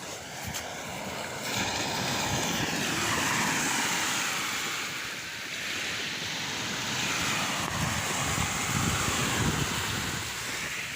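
Sea waves washing in, swelling twice, with wind buffeting the microphone.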